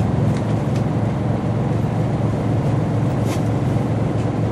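Scania L94UB bus's nine-litre six-cylinder diesel engine idling steadily while the bus stands still, heard from inside the passenger saloon. There is a faint click about three seconds in.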